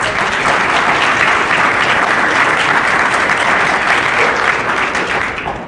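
Audience applause: many people clapping steadily, fading out near the end.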